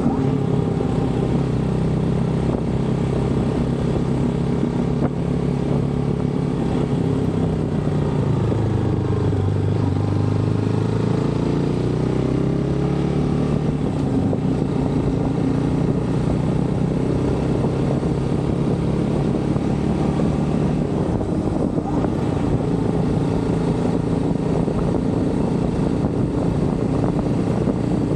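GPX motorcycle engine running steadily at road speed, with wind rushing over the microphone. The engine note drops about eight seconds in, then climbs again a few seconds later as the bike picks up speed.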